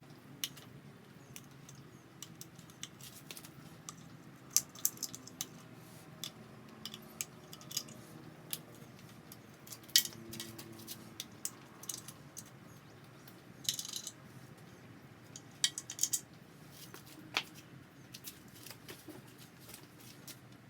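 Scattered metallic clicks and clinks of hand tools and steel washers as nuts and washers come off the engine case studs of an air-cooled VW engine. The clicks are irregular, and a few ring briefly.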